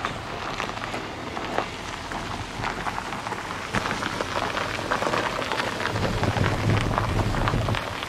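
Gravel crunching and crackling under the slowly rolling tyres of the Vision Mercedes-Maybach 6 electric concept car and under walking feet. A low hum comes in about six seconds in.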